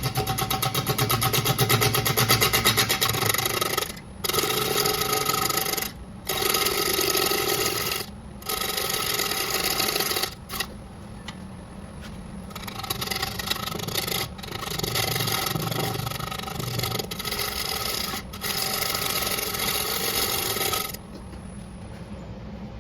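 Bowl gouge cutting a spinning paper birch blank on a wood lathe: a scraping cut in passes of a few seconds with brief breaks between them. The cut stops about 21 seconds in, leaving a faint steady hum.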